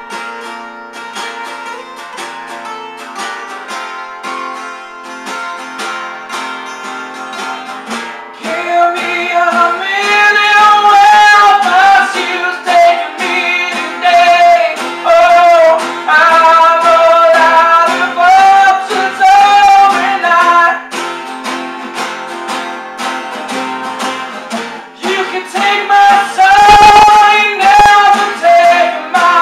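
Two acoustic guitars playing a song, at first with no voice; from about eight seconds in a man sings loudly over them, holding long notes.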